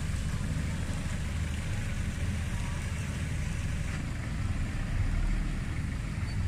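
A steady low rumble with a faint hiss above it, swelling slightly about five seconds in.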